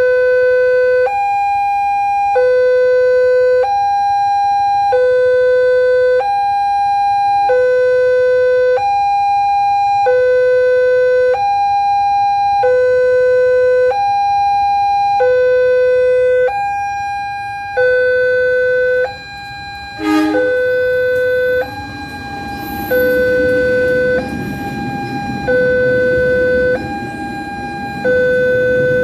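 Railway level-crossing warning siren sounding an electronic two-tone hi-lo signal, switching between a low and a higher tone about every 1.2 seconds. About two-thirds of the way in there is a brief sharp sound, and after it a low rumbling noise runs under the siren.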